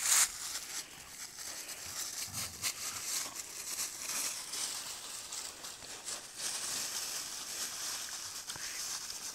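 Dry fallen leaves crunching and rustling under the paws of two dogs scuffling over a toy, with irregular short crackles throughout.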